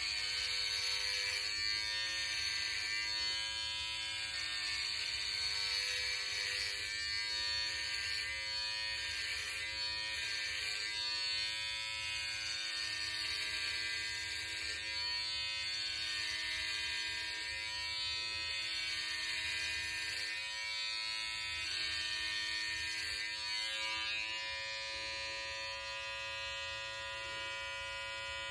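Cordless electric hair clipper buzzing steadily as it shaves hair off the scalp, its tone wavering while the blade cuts. Near the end the buzz settles into a steadier, cleaner hum.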